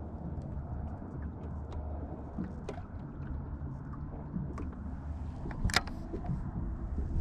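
Low steady hum of a small fishing boat on the water, with scattered light clicks and taps, and one sharper click a little before six seconds in.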